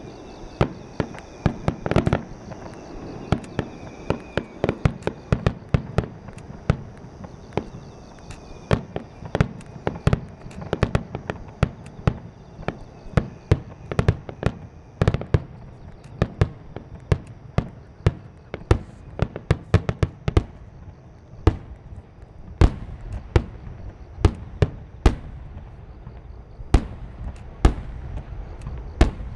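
Aerial firework shells bursting in a rapid, irregular barrage of bangs, several a second, from a starmine (rapid-fire fireworks sequence), with some of the biggest booms near the end.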